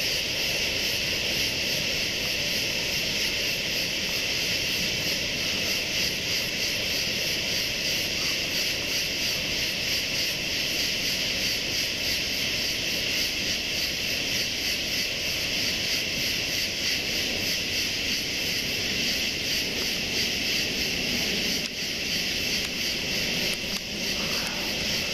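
Distant aircraft engine droning steadily, under a louder, constant high-pitched pulsing hiss.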